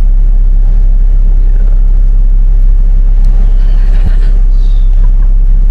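Steady, heavy low rumble of a bus's engine and body heard from inside the passenger cabin.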